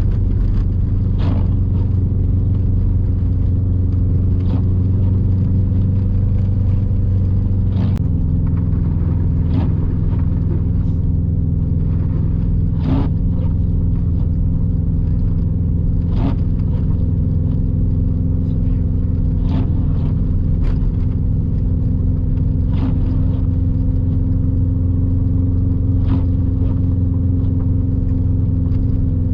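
In-cabin drone of a Subaru WRX STI's turbocharged flat-four engine and studded winter tires on a snowy road, holding steady, with the engine note shifting about eight seconds in. A short knock comes about every three seconds.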